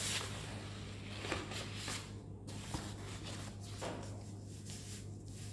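Sheets of handwritten paper being moved and turned, with soft rustling and a few light taps, over a low steady hum.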